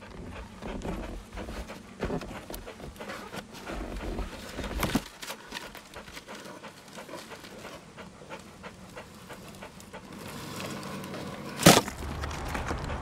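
A dog panting, with scattered small clicks. Near the end a steady low rumble sets in, and a single sharp knock is the loudest sound.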